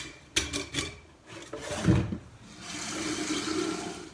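A few knocks of a glass jar in a stainless steel sink, then a kitchen tap running water into the glass sprouting jar for about the last second and a half, filling it to soak sunflower seeds and buckwheat for sprouting.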